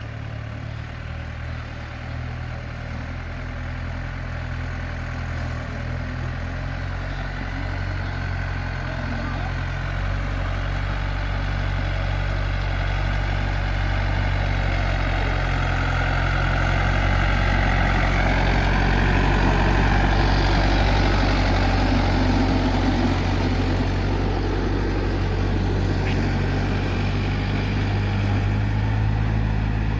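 Yanmar farm tractor's diesel engine running steadily while the tractor pushes crushed stone with its front blade. It grows louder over the first twenty seconds or so, then holds.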